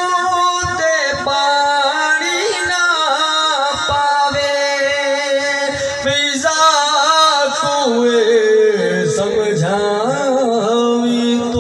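A man chanting a mourning lament in long, drawn-out melismatic phrases, the held notes wavering up and down, over a steady lower drone that steps down in pitch about eight seconds in.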